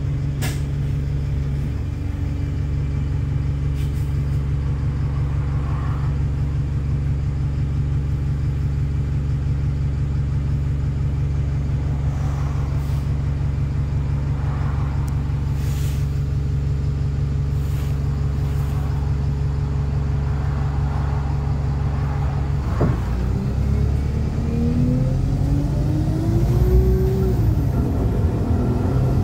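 Wright StreetLite single-deck bus's diesel engine heard from inside the saloon, idling steadily. About 23 seconds in it pulls away, and the engine note rises as it accelerates, dips once at a gear change and rises again.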